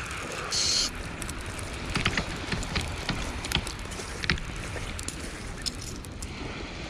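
Wind rumbling on the microphone, with a short hiss about half a second in and a handful of sharp clicks from a hand working a multiplier fishing reel.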